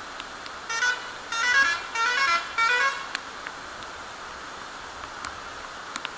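Vehicle horn sounding four short blasts over about two seconds, stepping between different pitches like a multi-tone musical horn, over a steady rushing background.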